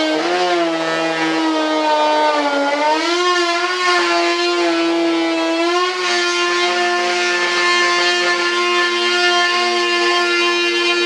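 A high-speed rotary cutter whining at a high, steady pitch while trimming fiberglass. In the first half its pitch sags and recovers under cutting load with a gritty grinding noise over it; after about six seconds it runs steady and clean, free of load.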